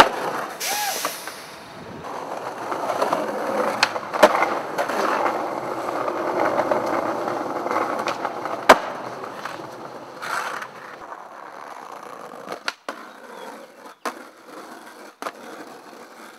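Skateboards rolling on concrete, with sharp clacks of boards popping and landing and trucks grinding on concrete ledges. The rolling is loudest over the first two thirds and fades near the end, while about half a dozen clacks mark the tricks, the loudest roughly halfway through.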